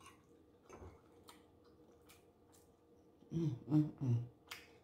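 Faint wet mouth clicks of a woman chewing with her lips closed, then a low three-note closed-mouth hum about three seconds in, followed by a single sharp mouth click.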